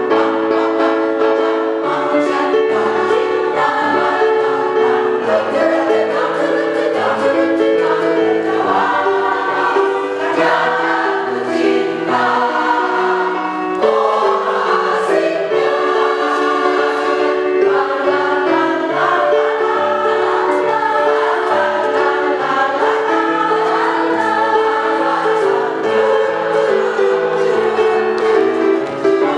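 A women's choir singing in harmony with grand piano accompaniment, the voices moving through sustained chords.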